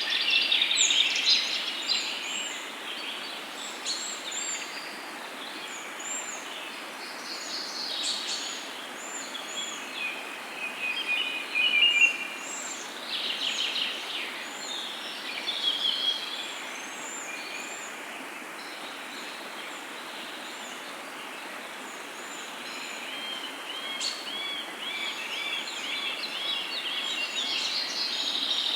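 Several songbirds chirping and singing over a steady background hiss, the loudest burst about twelve seconds in and a fast run of repeated chirps near the end.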